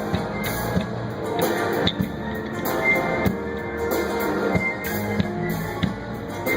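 Pop-rock music: guitar and drum kit playing with a steady beat.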